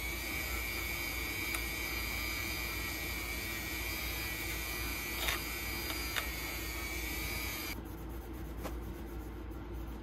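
A handheld rotary tool (Dremel-type) runs at a steady high whine with a small wheel held against the steel shaft of a screwdriver, polishing it, with two light ticks of contact. It shuts off about three quarters of the way through, and a cloth is then rubbed over the shaft.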